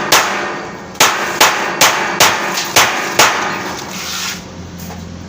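Hammer blows on a construction job: seven sharp strikes at an uneven pace over about three seconds, each with a short ringing tail, then the hammering stops.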